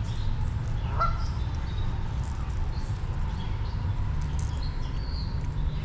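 A goose gives one short, rising honk about a second in, over a steady low rush of flowing river water.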